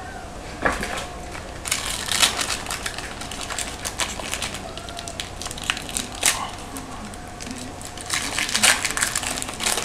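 Foil trading-card pack wrapper crinkling and being torn open by hand, in irregular crackling bursts, busiest about two seconds in and again near the end.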